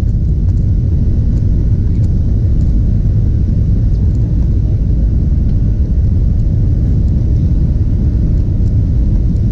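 Steady low rumble inside the cabin of a Boeing 737-700 rolling on the ground, its CFM56-7 turbofan engines running evenly under the wing.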